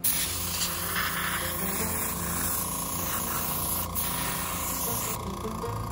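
Central Pneumatic airbrush spraying leather dye: a steady hiss of compressed air and atomised dye that starts at once, eases off about five seconds in and carries on more faintly.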